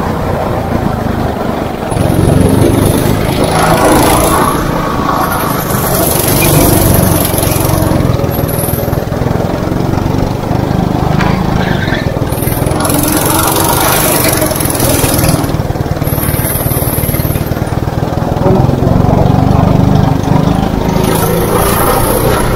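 Go-kart's small engine running hard beneath the driver, its pitch rising and falling as it revs up and eases off several times through the corners and straights.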